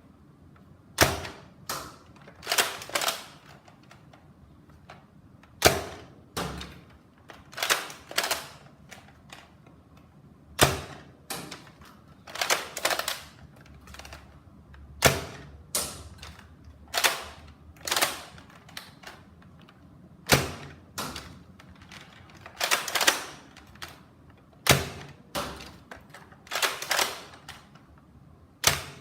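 NERF Modulus dart blaster firing darts one after another: sharp plastic clicks and clacks in small clusters every two to three seconds.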